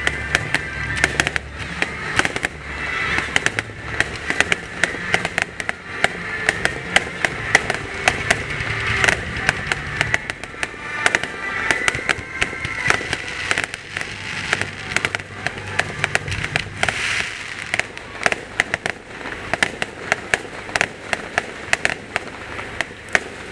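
Fireworks going off in a rapid, continuous string of sharp bangs and crackles.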